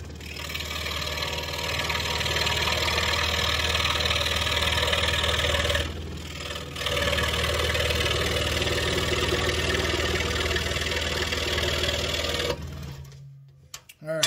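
Scroll saw running and cutting through a block of wood, a steady motor hum with the blade's rasp. It dips briefly about six seconds in, then the saw is switched off near the end and winds down.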